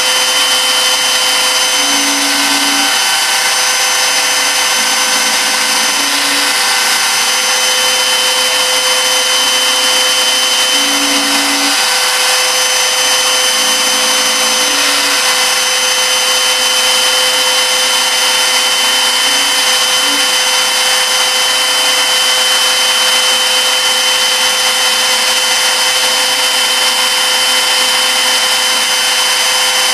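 CNC milling machine's spindle running steadily while a small ball-end mill contours a dome in 6061 aluminum: a constant high whine over a cutting hiss. Brief low tones come and go a few times.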